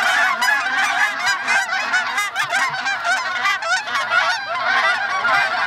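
A large flock of geese honking, with many short calls overlapping in a continuous clamour.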